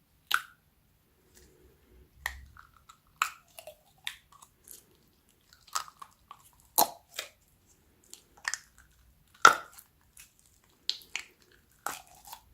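Slime being mixed and squeezed by hand, making irregular sharp wet clicks and pops with short gaps between them.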